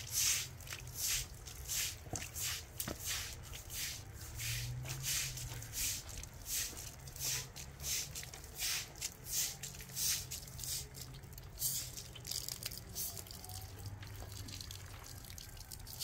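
Straw broom sweeping a wet concrete floor: repeated short swishing strokes, one or two a second.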